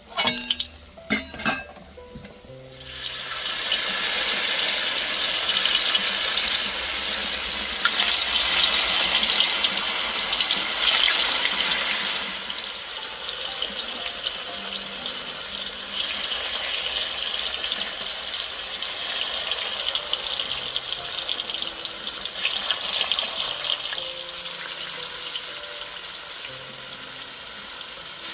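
A few knocks, then food frying in a pan: a steady sizzle starts about three seconds in, grows loudest for a few seconds, then settles and carries on.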